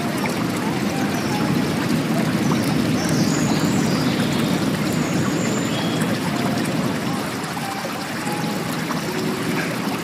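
Water running and trickling steadily, like a babbling stream, with small bubbling plinks over an even rush.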